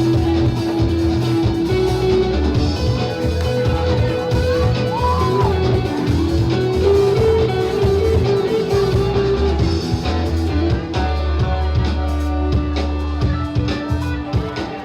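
Rock music with guitar over a heavy bass, held notes shifting in pitch.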